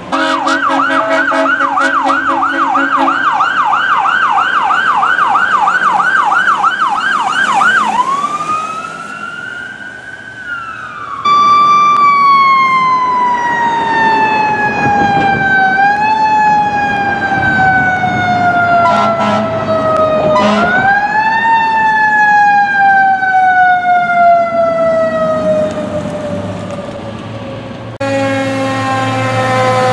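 Fire truck sirens one after another. First a fast yelp, then a rising wail. Next a long wail that falls slowly in pitch and is wound up again twice, with two short blasts near the middle. Near the end another siren wail falls away.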